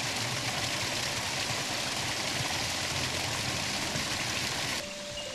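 Steady rush of water flowing down a rain-swollen creek or trailside runoff. It cuts off suddenly near the end, leaving a quieter background with a few clicks.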